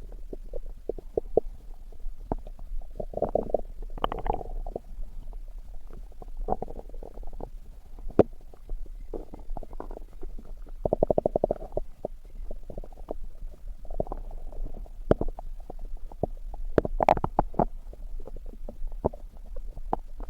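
A person's stomach growling and gurgling in irregular bursts and pops. About halfway through there is a quick, bubbling rattle, and near the end come a few sharper pops.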